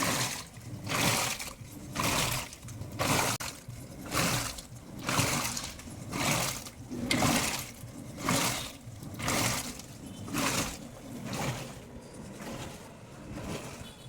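Washing machine agitating its wash water, a rhythmic swish of sloshing water about once a second as the drum or agitator turns back and forth.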